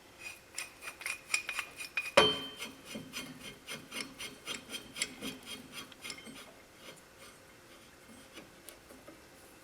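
Ratchet clicking in quick, even strokes as it turns the screw of a ball joint press to press wheel studs into the axle flange, with one louder metal clank and brief ring about two seconds in. The clicking stops about six and a half seconds in.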